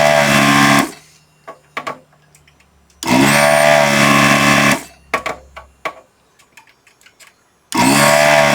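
A desoldering gun's vacuum pump runs in three bursts, each switched on and off by the trigger, with a steady hum of stacked tones. Small clicks from the tool come in the gaps. The trigger is kept pulled as the tip leaves the board so air flushes the vacuum tube, and the pump's tone tells how freely the solder is being sucked through.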